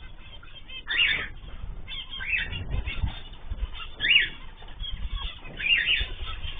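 Caged pet birds giving short, sharp calls that sweep in pitch, one every second or so, over low muffled thumps.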